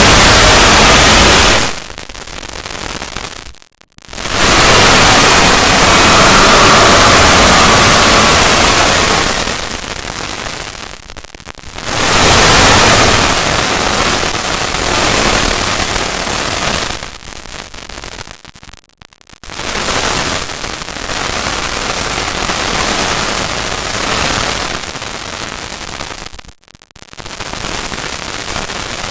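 Loud, distorted static-like noise from an edited logo sound effect, filling every pitch and swelling and easing, cut by brief dropouts about 4, 19 and 27 seconds in.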